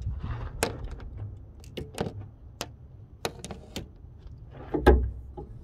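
Scattered metallic clicks and clinks of hand tools being handled at a car's engine bay, with one louder knock about five seconds in, over a low background rumble.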